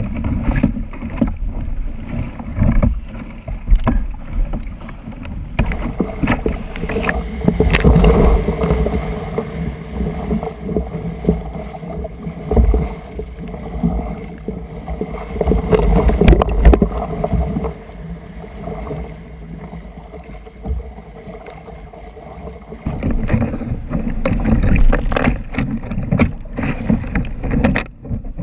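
Surf breaking and rushing around a sit-on-top kayak as it is paddled through the waves, with splashes from the paddle blades and hull; the sound swells and falls as each wave passes.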